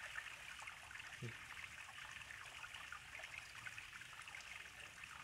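River water trickling and flowing faintly and steadily, a fine even crackle of moving water.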